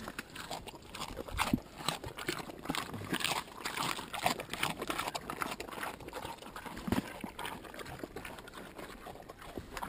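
Mangalica pig chewing and smacking wetly on a piece of cucumber, a string of irregular short wet munching clicks close to the microphone.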